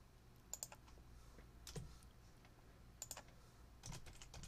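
Faint computer keyboard keystrokes: a few scattered key presses about a second apart, with a quick little cluster of keys near the end.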